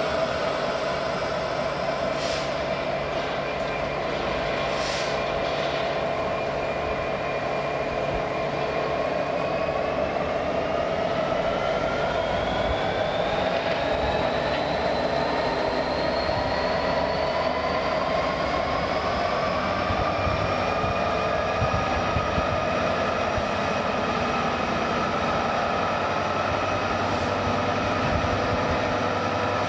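A train running with a steady drone and a whine of several tones that rise together in pitch from about a third of the way in, then level off. Two brief sharp sounds come near the start.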